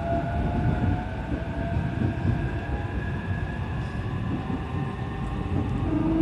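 E531 series electric train running, heard from on board: a steady rumble of wheels on rail with the thin whine of the traction motors slowly rising in pitch as the train gathers speed.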